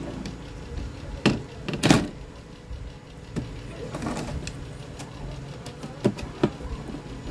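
Scattered sharp clicks and knocks, about six, the loudest about two seconds in. They come from plastic wiring connectors being pulled from an LED TV's main board and the board being handled, over a steady low hum.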